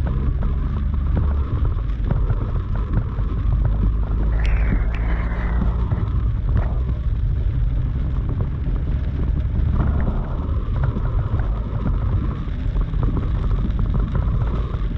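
Heavy rain pelting a vehicle during a thunderstorm, a dense crackle of drops over a deep, steady rumble of wind and the moving vehicle.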